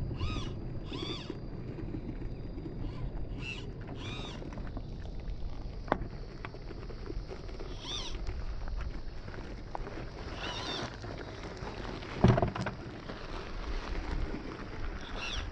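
Electric drivetrain of a 1/10-scale Gmade Buffalo RC crawler whining in short rising-and-falling bursts as the throttle is worked, over a low rumble. There is a sharp click about six seconds in, and a thump a little past twelve seconds is the loudest moment.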